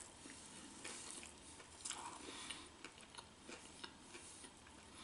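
Faint chewing of a mouthful of burger, with a few soft mouth clicks and squishes scattered through it.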